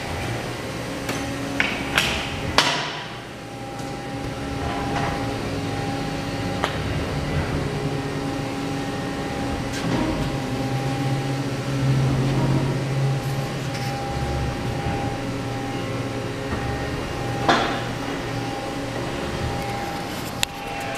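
Workshop background: a steady machinery hum, broken by several sharp knocks and clanks of tools being worked, the loudest about two and a half seconds in.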